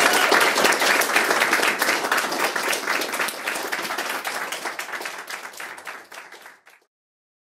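Audience applauding, many hands clapping densely, gradually fading and then cutting off abruptly near the end.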